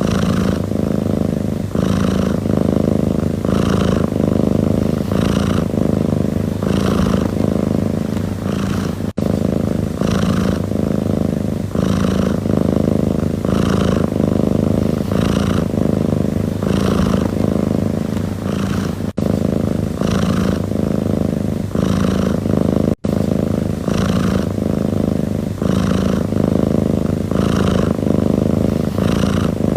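Domestic cat purring steadily and close up, the purr swelling and easing in a regular cycle about once a second. It cuts out for an instant three times.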